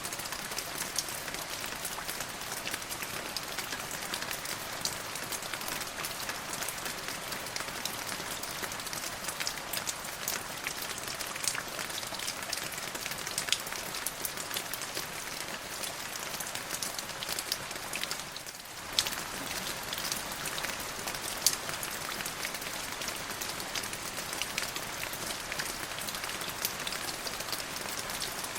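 Steady rainfall, many single drops ticking sharply against a constant hiss of rain. The sound briefly dips about two-thirds of the way through, then returns as before.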